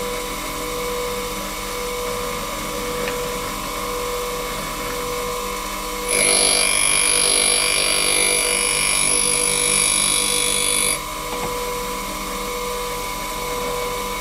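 Bench grinder with a diamond wheel running with a steady hum. From about six seconds in to about eleven seconds, a milling cutter's flute is pressed against the wheel and grinds with a loud, high-pitched hiss and whine, then stops abruptly: the secondary clearance angle being ground.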